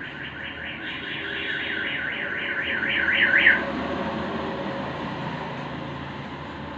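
A high, alarm-like warbling tone, sweeping rapidly up and down about four to five times a second, grows louder and cuts off suddenly after about three and a half seconds, over a steady low hum.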